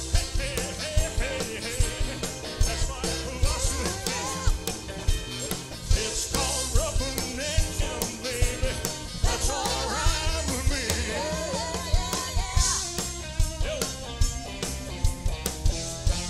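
Live rock-and-roll band playing, with a male lead vocal singing over drums, bass, electric guitar and saxophone, and a steady driving drum beat.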